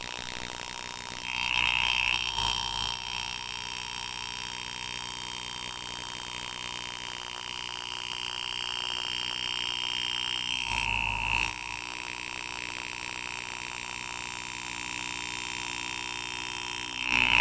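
Steady buzzing of a power-assisted engraving handpiece driving a V graver into a silver overlaid copper rivet. The buzz grows brighter about a second in as the cut starts, changes briefly about two-thirds of the way through, and swells again near the end.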